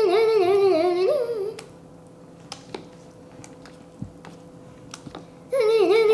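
A young girl's wordless, sing-song vocalizing, a wavering hum-like tune: one stretch of about a second and a half at the start and another near the end. A few light clicks and taps in between.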